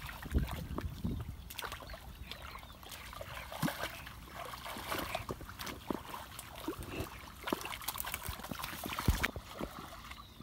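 Hands sloshing and groping through shallow muddy water, with irregular small splashes and trickles.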